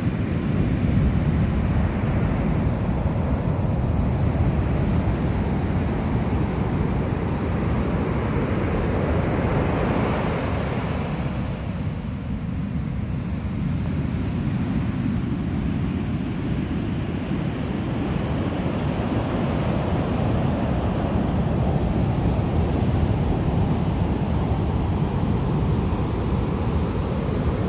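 Ocean surf breaking and washing up a sandy beach in a continuous rush, with one wash swelling loudest about ten seconds in. Wind rumbles on the microphone underneath.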